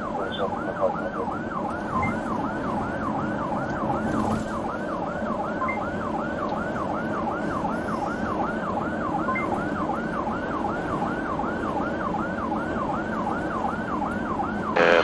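Police car siren on yelp, a fast warbling tone sweeping down and back up about two to three times a second, steady throughout, over the hum of the car's engine and road noise.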